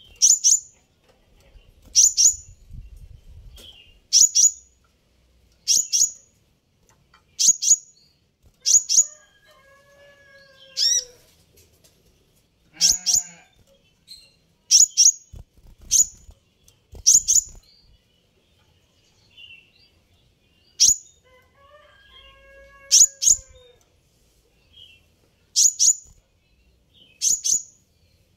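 Van Hasselt's sunbird chirping: sharp, very high chirps in quick pairs and triples, repeating every second or two. Twice, a lower, drawn-out animal call sounds underneath.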